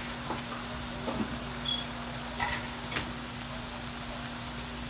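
Sliced onions frying in oil in a pan, a steady sizzle with a few faint ticks and crackles.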